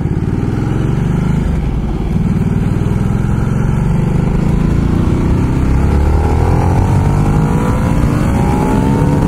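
Ducati Multistrada motorcycle engine pulling hard under acceleration, its pitch rising steadily over the last few seconds.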